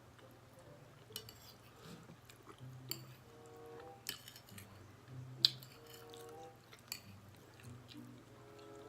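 Eating pasta: quiet chewing, with several sharp clicks of a fork against a dish, the loudest about five and a half seconds in.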